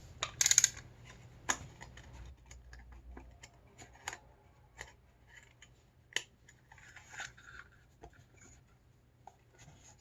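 Scattered small clicks and brief paper rustles as the backing paper of 120 roll film is worked into the slot of a Lubitel camera's take-up spool.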